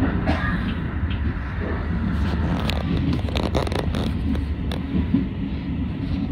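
Shin-Keisei electric commuter train pulling slowly along a station platform to stop, heard from inside the car: a steady low rumble with scattered light clicks and scrapes between about two and five seconds in.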